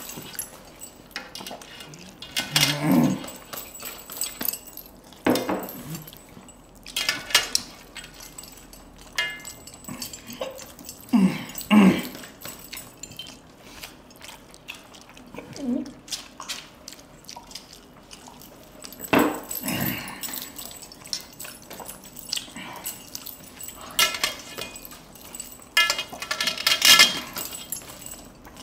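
Two people eating rice and chicken curry by hand from steel plates: chewing and mouth noises, fingers scooping and mixing rice against the metal plates, and rings clinking on the steel, in scattered short bursts with a few brief low throaty sounds.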